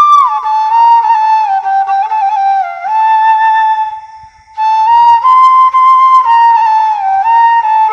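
Bashi (bamboo flute) playing a sad, slow melody as one line of notes that slide from pitch to pitch. The phrase breaks off about four seconds in for a short breath, then starts again.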